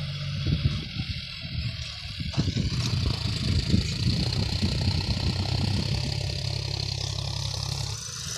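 Farm tractor's diesel engine running at a steady pitch while it pulls a disc harrow through dry soil, with a steady high hiss behind it.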